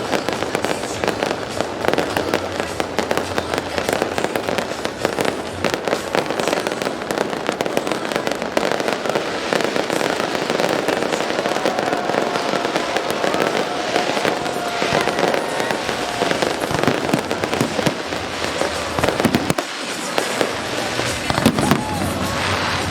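Fireworks display: a continuous dense barrage of bangs and crackling shells, with music playing underneath.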